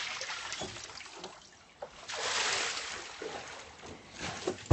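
Water poured from a bucket splashing into a paddling pool, with a louder spell of splashing about two seconds in.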